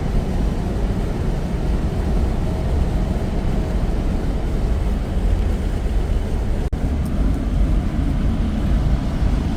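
Steady low rumble of a semi truck's engine and road noise heard inside the cab while driving at highway speed, with a momentary cut-out about two-thirds of the way through.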